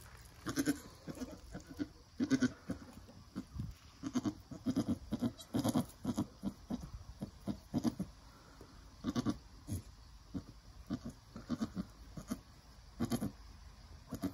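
Nigerian Dwarf doe making many short, low calls in quick runs to her newborn kid as she cleans and encourages it.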